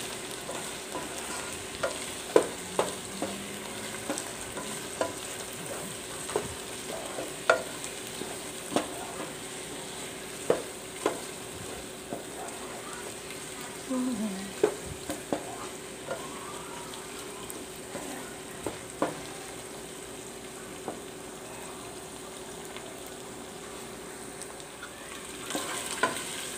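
Chicken wings and onion sizzling in oil in a nonstick pot, stirred with a wooden spatula that scrapes and knocks against the pot every second or two, the knocks growing fewer in the last part.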